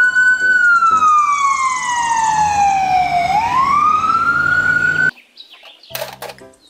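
Electronic ambulance siren wailing: one slow fall in pitch, then a rise, cutting off suddenly about five seconds in.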